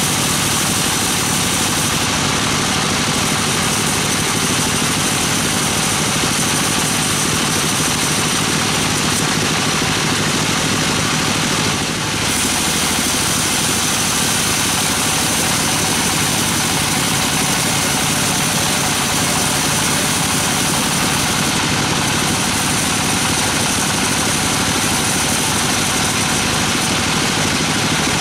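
Sawmill band saw running and cutting through a gmelina log: a loud, steady, dense mechanical noise with a brief dip about twelve seconds in.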